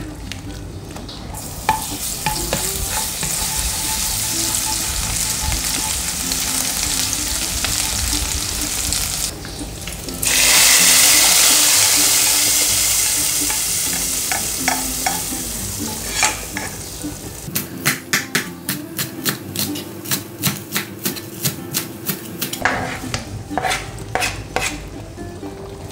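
Soup in a stainless steel pot being stirred as it simmers. About ten seconds in, hot fried garlic in oil is tipped in from a pan and sizzles loudly, dying away over several seconds. This is followed by a run of quick clicking strokes, about two or three a second.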